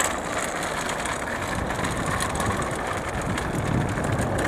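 A vehicle engine running steadily, a low continuous hum of engine noise.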